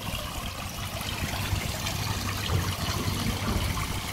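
Steady trickle of running water into a garden koi pond, with a low steady hum beneath it.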